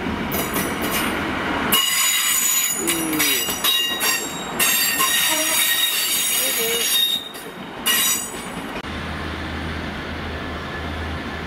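Class 150 Sprinter diesel multiple unit passing on a curve, its wheels squealing in several high, steady tones for about seven seconds. The squeal cuts off abruptly, and a steady low hum follows.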